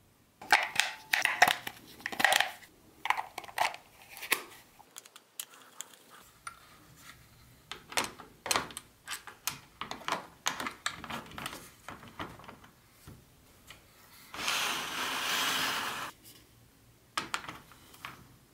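Handling sounds: AAA batteries clicking into the plastic battery compartment of a LionChief remote, then light plastic clicks and knocks as a plastic O-gauge locomotive and tender are set on metal track. A steady rubbing noise lasts about a second and a half, roughly two-thirds of the way through.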